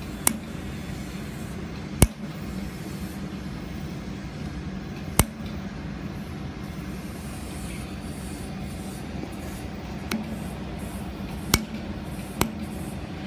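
Handheld laser welding machine at work on a metal joint: a steady hum and hiss, broken by about six sharp clicks at uneven intervals.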